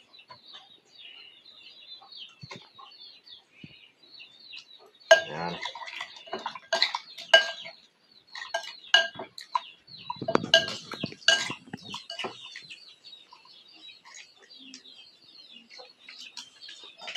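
Metal spoon clinking and scraping against a ceramic bowl while a bowl of kinilaw is stirred: a quick run of sharp, ringing clinks from about five seconds in, lasting several seconds.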